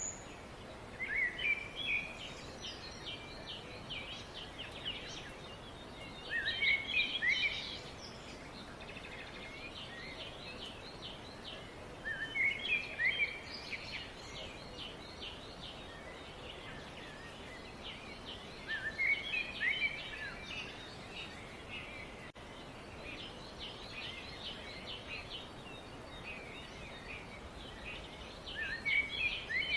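Birds singing: a louder song phrase of quick rising and falling notes comes five times, roughly every six seconds, over steady high twittering and chirping.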